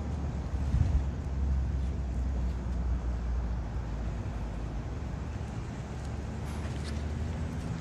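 Fire apparatus engine running with a steady low rumble.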